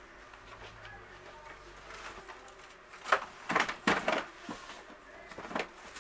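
Rummaging in a cardboard shipping box: boxed vinyl figures and cardboard being handled, with a cluster of sharp rustles and knocks about three to four seconds in and another near the end.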